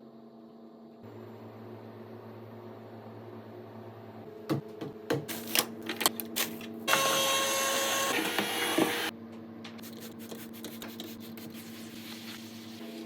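Steady hum of a kitchen appliance, with scattered clicks and clatter and a loud rushing hiss lasting about two seconds near the middle.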